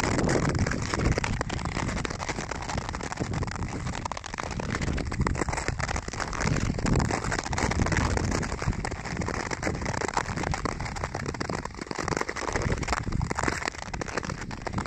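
Nordic skate blades scraping and crackling over a thin layer of snow on natural lake ice, a continuous gritty hiss that swells and eases in loudness, with low wind rumble on the microphone.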